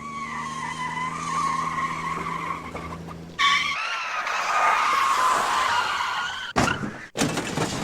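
Sound-effect sequence of a speeding car: an engine running with tyres squealing, a sudden louder screech about three and a half seconds in, then a crash with two loud impacts near the end.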